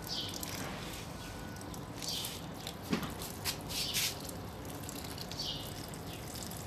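A small bird repeats a short, high chirp about every two seconds over a faint steady hiss. There is a soft knock about three seconds in.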